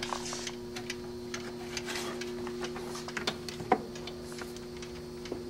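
The mechanical timer of a Schumacher SE-2158 battery charger ticking, with a steady hum underneath.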